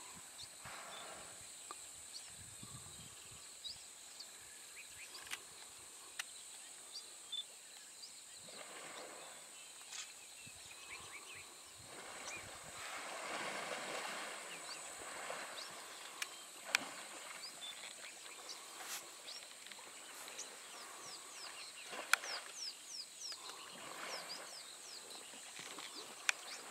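Water splashing and sloshing in swells that come and go as two African elephant bulls wrestle in a waterhole. Under it runs a steady high insect buzz, with scattered clicks and short chirps near the end.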